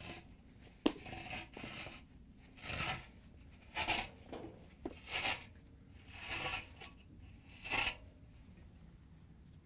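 Old dryer drum felt seal being pulled away from the drum lip, tearing loose from its adhesive in a series of short rips, about six over several seconds, stopping shortly before the end.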